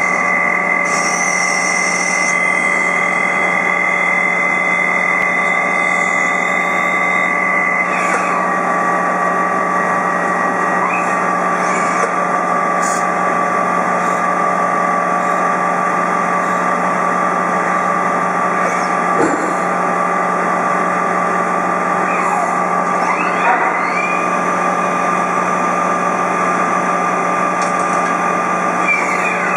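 CNC machine running while it machines brass screws: a steady machine hum with several held tones, broken now and then by short sliding changes in pitch and a brief knock.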